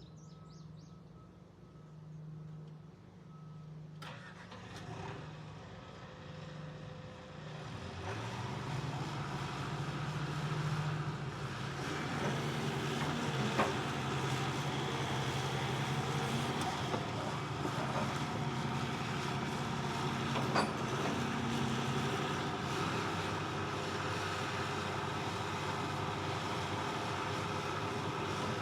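The Isuzu diesel engine of a Hitachi ZX160LC-6N excavator idling, then revving up about eight seconds in and running steadily louder at higher throttle, with a few sharp clicks.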